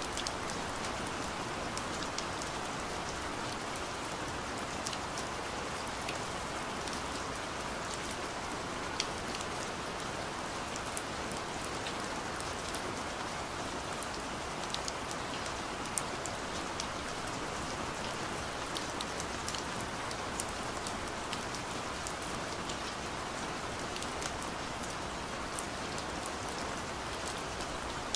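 Steady rain: an even hiss with scattered sharper ticks.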